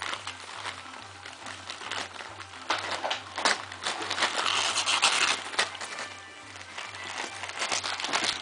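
Wrapping paper crinkling and tearing in quick, uneven rustles as a Shih Tzu shreds it, busiest in the middle. Music plays in the background.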